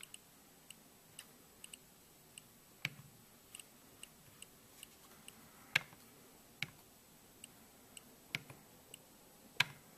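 Nest Learning Thermostat ticking softly as its control ring is turned through the setup menu, with several louder clicks as the ring is pressed to select.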